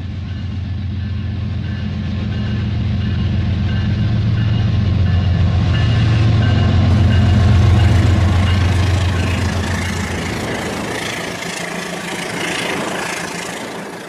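Toy train running on plastic track, a steady low motor hum with fast wheel clatter. It grows louder until about eight seconds in, then fades as the train passes.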